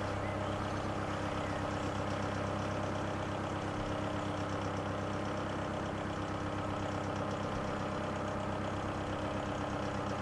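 A narrowboat's diesel engine running steadily at low cruising revs, an even, rhythmic chug.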